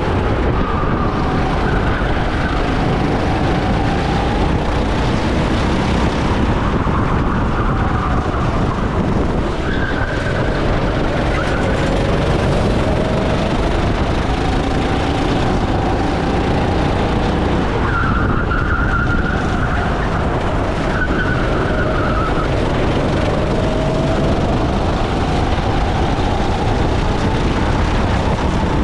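Go-kart engine running flat out, its pitch rising and falling again and again through the laps, over a steady low rumble.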